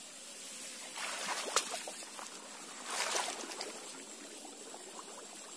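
Tall grass and reeds rustling and swishing as they are pushed aside by hand and foot at the edge of shallow water, with a light trickle of stirred water. There are two louder bouts about two seconds apart, with a sharp snap between them.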